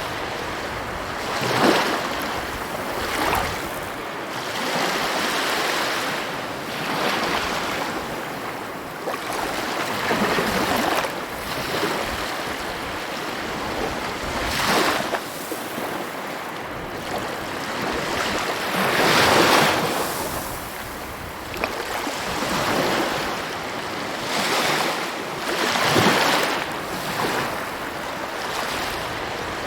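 Sea waves breaking on a shore: a continuous wash of surf that swells every few seconds as each wave breaks, with the biggest break about two-thirds of the way through.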